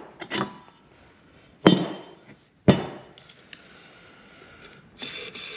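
Small clicks and clinks of loose metal motor parts, then two sharp metallic knocks about a second apart. Near the end a steady rasping whir starts: a worn, noisy table-saw motor bearing being spun by hand.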